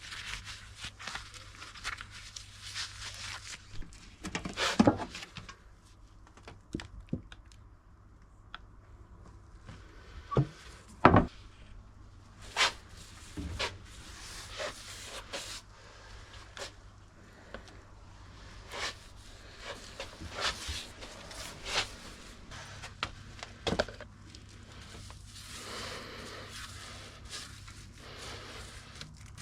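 Scattered knocks, taps and clicks of things being handled, with a few louder thuds, loudest about five and eleven seconds in.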